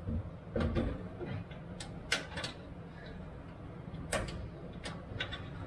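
Irregular metallic clicks and light taps of a hand wrench working the nuts and bolts on the gas-tank mounting under a full-size Jeep, with one sharper click about four seconds in.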